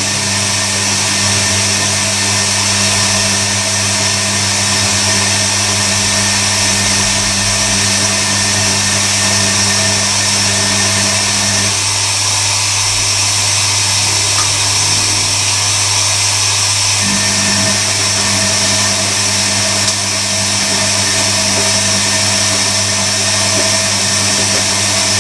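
Hoover Electronic A3172 washing machine running a rinse fill: a steady hum with a hiss of water coming in while the drum tumbles. Part of the hum drops out for about five seconds midway, then comes back.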